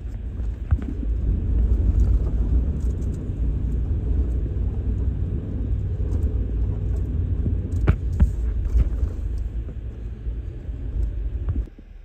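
Vehicle driving along a snow-covered track, heard from inside the cab: a steady low rumble of engine and tyres, with a few knocks about eight seconds in. The rumble drops off sharply near the end.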